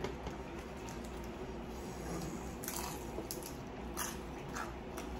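Close-up chewing and crunching of crispy fried lumpia spring rolls, with several sharp crunches in the second half.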